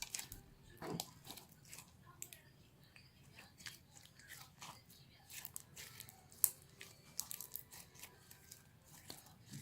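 Slime being squeezed and poked by hand, making irregular sticky clicks and small pops, with one sharper pop about six and a half seconds in.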